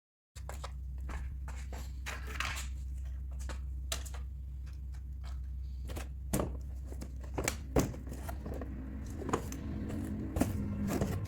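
Hands unboxing a die-cast toy car: the box and packaging handled, with scattered clicks and taps and a brief crinkle of packaging, over a steady low hum.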